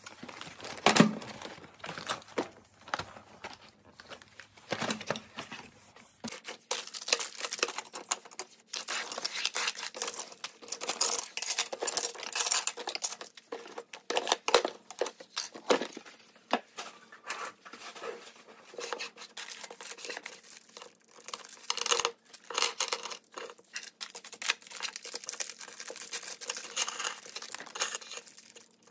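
Plastic parts bags crinkling and rustling as a drone frame kit is unpacked and sorted by hand, with scattered light knocks of parts and the box being set down on a wooden desk.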